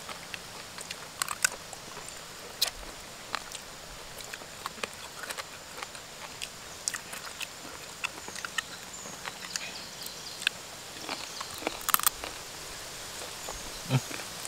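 Close-up eating sounds of two people chewing chicken and rice by hand: irregular wet clicks and lip smacks, a few per second, over a faint steady outdoor hiss.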